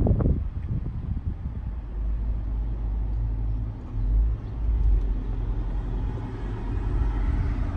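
Low rumble inside a car's cabin, swelling a couple of times midway, with a person chewing food.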